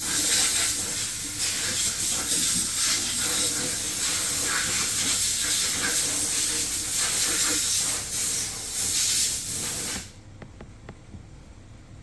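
Loud, steady hiss of a pressurized spray, starting abruptly and cutting off suddenly about ten seconds in.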